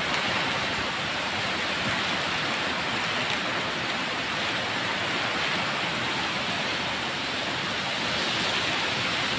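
Heavy typhoon rain and wind through trees, a steady even hiss.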